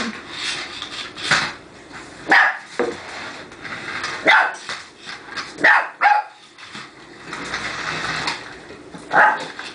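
A small puppy barking repeatedly in short, sharp barks, roughly one every second or so, at a remote-controlled toy car. Between the barks, the toy car's motor and wheels whir on the wooden floor.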